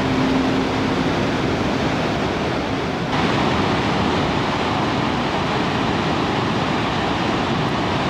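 Waterfall in full flood after a typhoon: a loud, steady rush and churn of falling water.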